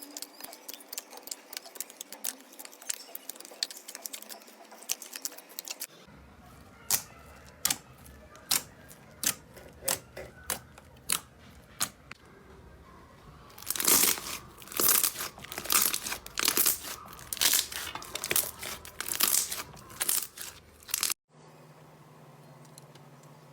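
Slime being squeezed and pressed by hand, making crackling clicks and pops: first a dense fine crackle, then single sharp clicks, then louder bursts of clicking. Near the end it cuts to a quiet stretch with a steady low hum.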